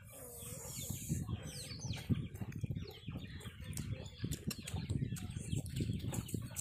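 Close-up chewing and crunching of fried fish and raw vegetable slices: a quick, irregular run of crunches and mouth clicks.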